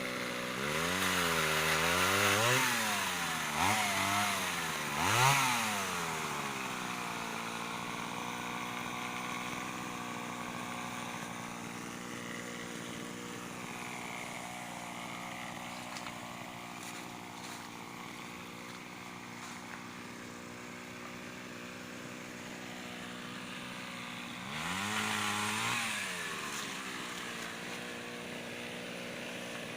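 Small two-stroke Mitsubishi TL26 engine on a pole saw, idling steadily and revved up several times in quick succession in the first seven seconds, then revved again about 25 seconds in.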